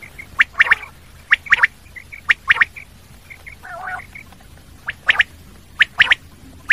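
Common quail song: the sharp three-note 'wet-my-lips' phrase, one short note followed by two close together, repeated five times about once a second. A lower, rasping call fills a pause near the middle.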